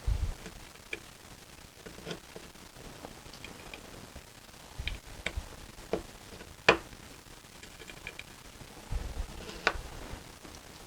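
Small brass model parts being handled and fitted together while a tiny pin is pushed into place: scattered light clicks and ticks, one sharper tick about two-thirds of the way in, with a few dull bumps at the start and near the end.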